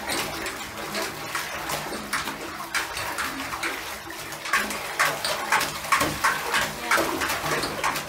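German shepherd puppy pawing and splashing at shallow bath water in a tub: a run of irregular splashes that come quicker and louder in the second half.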